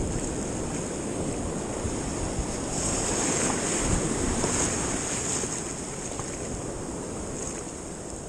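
Shallow beach surf washing and foaming around the shins, with wind buffeting the microphone. The wash swells about three seconds in and eases off toward the end.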